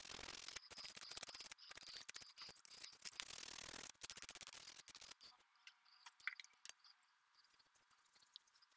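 A turned walnut handle being hand-sanded with an abrasive pad: quick scratchy rubbing strokes for about five seconds, then much quieter with a few light clicks.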